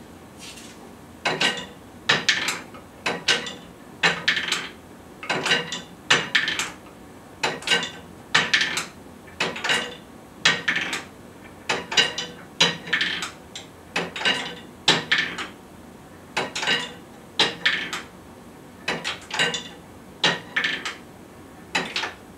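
Glass marbles running through a wooden single-rail escapement: a steady run of wooden clacks and glass clinks in small clusters, about one a second, as the pivoting rail tips each marble into the collection tray among the others.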